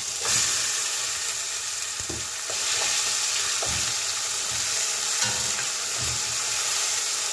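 Wet masala paste of onion, garlic, ginger, green chilli and coriander roots sizzling as it goes into hot oil with whole spices in a pot. The sizzle starts suddenly and carries on steadily, with short knocks and scrapes as it is stirred.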